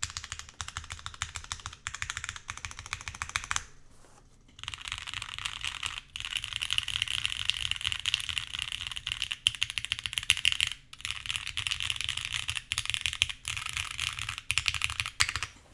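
Typing on the Portal custom mechanical keyboard with polished Cherry MX Black linear switches, a full aluminium plate, an O-ring mount and GMK ABS keycaps: a fast, continuous stream of keystrokes, with a short pause about four seconds in.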